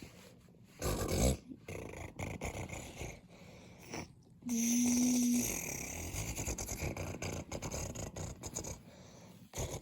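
A person making toy-truck engine noises with the mouth: a short, loud rasp, then a brief steady hum as the engine starts, followed by a rough, breathy running sound.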